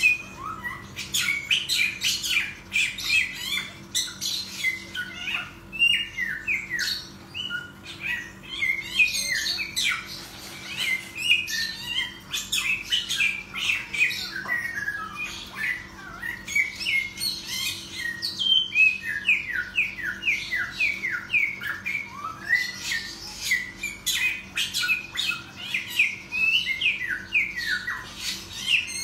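Caged samyong (hwamei) singing vigorously: a long, loud run of fast, varied whistled sweeps and chattering notes in phrases, with only brief pauses.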